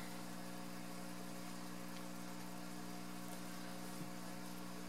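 Steady low electrical hum with a faint hiss: room tone. A soft, faint bump about four seconds in as the rabbit is set back down on the carpeted table.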